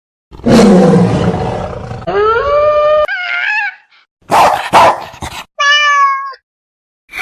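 A sequence of recorded animal calls: a loud rough roar, then a rising howl, two short harsh barks and a brief wailing call.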